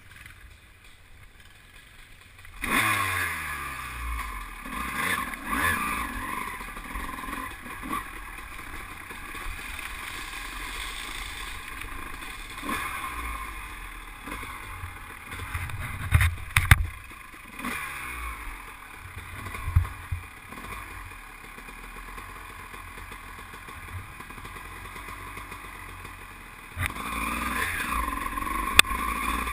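Dirt bike engine running at low revs, then revving up sharply about three seconds in and working at varying throttle. It is joined by several sharp knocks and clatter as the bike rides over rocks, with another burst of throttle near the end.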